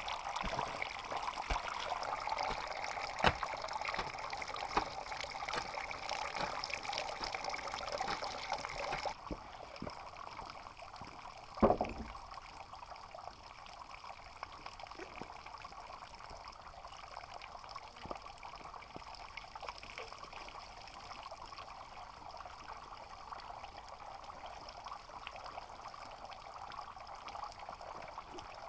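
Water trickling through a bamboo foot-wash trough, with scattered clicks and knocks. About nine seconds in the sound drops abruptly to a quieter, steady trickle, broken by a single low thump a few seconds later.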